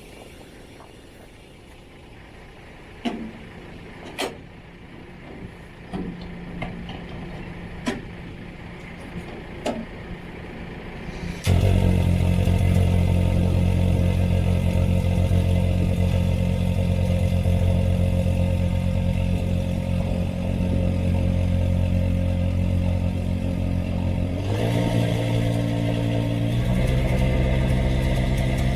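A few scattered clicks and knocks, then a vehicle engine starts suddenly about a third of the way in and runs steadily, its pitch stepping up twice near the end.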